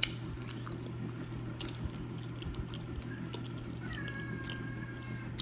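A cat meowing: one long drawn-out meow about four seconds in, over a steady low hum, with a couple of sharp clicks earlier on.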